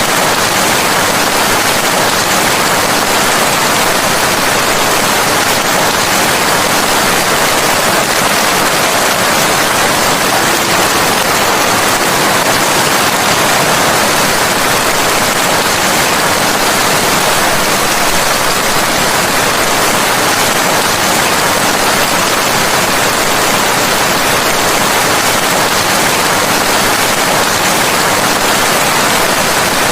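Steady rain falling: an even, continuous hiss that does not change.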